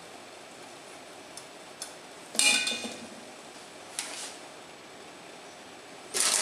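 Metal kitchenware clinking, stainless-steel cooking rings knocking in a frying pan as the mixture is packed into them. There are three sharp knocks, each with a brief ring: the loudest about two and a half seconds in, then about four and six seconds in.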